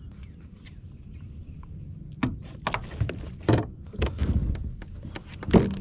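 Hollow knocks and thumps on a plastic fishing kayak's hull as it is boarded and the paddle handled, starting about two seconds in and coming irregularly, the loudest near the end, over a low steady rumble.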